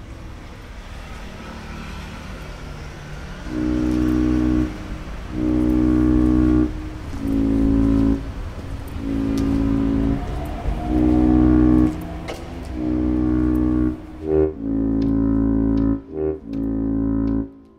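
Instrumental soundtrack music. A low, hazy drone opens it, then from about three and a half seconds in comes a series of held low chords, each about a second long with short breaks between.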